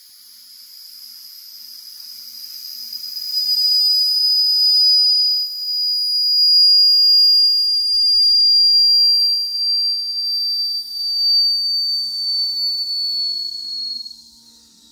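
Steam escaping from a c.1912 Bing gauge 1 live steam locomotive in one long, high whistle. It swells up over the first few seconds, holds steady for about ten seconds, then sags slightly in pitch and cuts off near the end.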